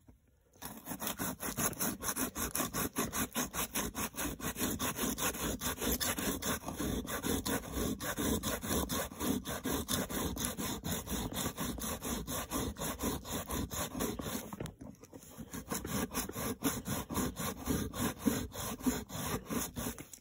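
Wet, crumpled aluminum foil scrubbed rapidly back and forth over the rusty chrome-plated metal base of a car mirror, scraping off rust, several strokes a second. The scrubbing stops briefly about three-quarters through, then starts again.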